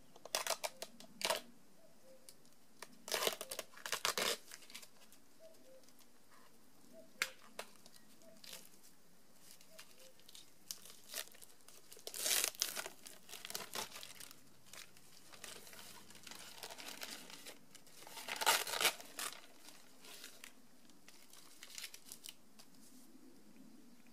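Packaging being torn and crinkled off a salt lick block, in irregular bursts of rustling, loudest about three, twelve and eighteen seconds in.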